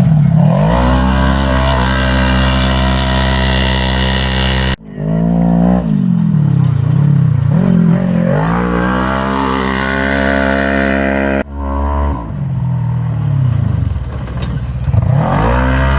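Off-road race vehicles' engines running loud and revving as they pass, the pitch dipping and climbing with throttle and passing. Two sudden cuts, about 5 s and 11.5 s in, split it into three separate passes.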